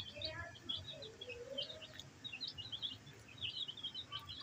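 A small flock of baby chicks peeping: a busy, overlapping flurry of short, high chirps, with a few fainter, lower calls in the first second or so.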